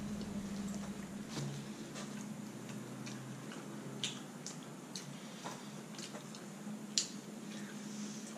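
Eating sounds: scattered soft clicks and wet smacks of mouths chewing pizza, over a faint steady low hum, with the sharpest click about seven seconds in.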